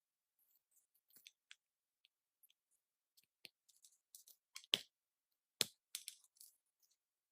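Sparse small clicks and taps from parts and tools being handled on a diecast model car, with a few sharper knocks past the middle.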